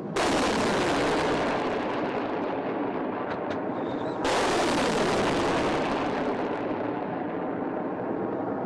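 Rocket motors of launching missiles, two launches about four seconds apart. Each starts with a sudden loud roar that slowly fades as the missile climbs away.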